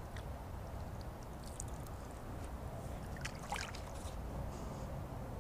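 Water trickling and lapping around a kayak hull over a low steady rumble, with a few brief splashes about a second and a half and three and a half seconds in.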